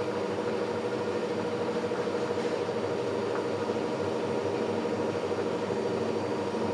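LG front-loading washing machine running, a steady mechanical hum with a constant tone.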